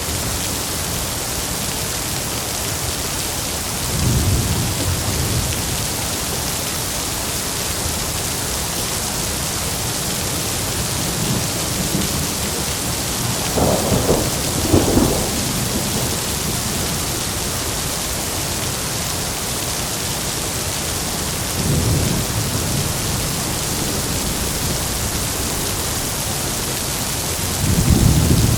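Heavy rain falling in a steady hiss, with rolls of thunder rumbling low about four seconds in, twice around the middle, again a little past three-quarters of the way through and near the end.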